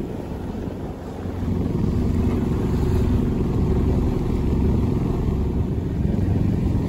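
Sailboat's auxiliary engine running steadily under way as the boat motors straight into the wind, a low hum with wind and water noise over it; it gets louder about a second and a half in.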